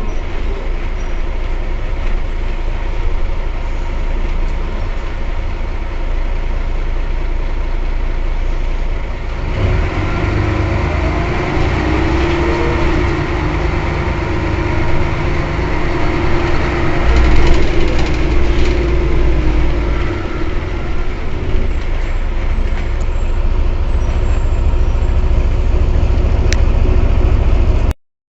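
Mercedes-Benz O 405 N city bus running with a steady low rumble that grows louder about ten seconds in, with a few knocks partway through. The sound cuts off abruptly near the end.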